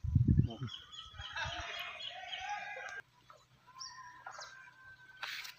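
A rooster crowing once, one long call of about a second and a half that cuts off sharply. It is preceded by a few low thumps at the start and followed by fainter tones and chirps.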